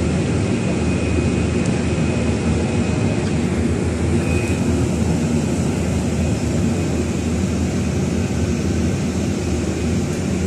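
Steady engine and road rumble inside the cabin of a moving city bus.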